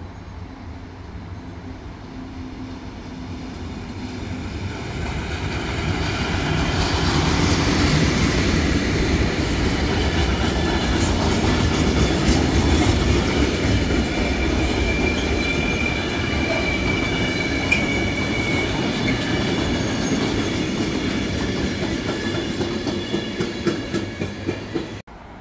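Freight train passing through: the rumble of the wagons builds over several seconds into a loud, steady run, with the wheels clacking over rail joints and a high wheel squeal for a few seconds midway. It cuts off abruptly near the end.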